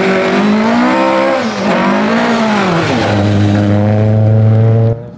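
Rally car engine at full throttle, its pitch climbing and dropping a few times as it shifts gears, then held steady at high revs for about two seconds before cutting off suddenly near the end.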